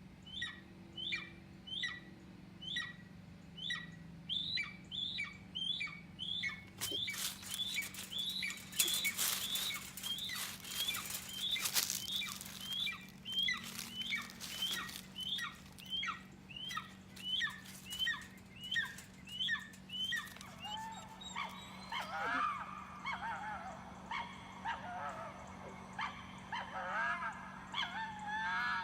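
Played-back sound effect of a bird chirping over and over, about two short chirps a second, each falling in pitch, with a stretch of crackling noise in the middle. In the last third the chirps give way to wavering, sliding calls.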